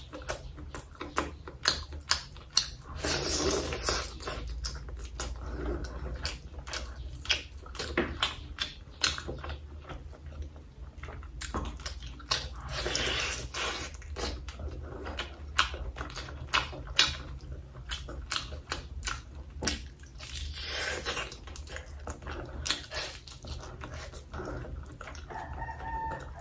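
Eating sounds of a person chewing chicken thigh meat: a dense run of sharp wet clicks and lip smacks, with a few longer, louder stretches of chewing.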